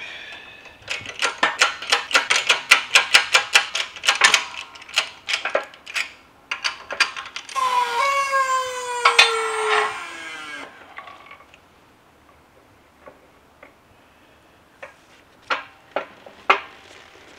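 Hydraulic shop press being pumped to press second gear and the 1-2 synchro hub off a Toyota T50 transmission mainshaft. Rapid metallic clicks for several seconds, then a falling metal squeal with a sharp crack partway through as the press-fit parts are forced along the shaft, then a few scattered clicks near the end.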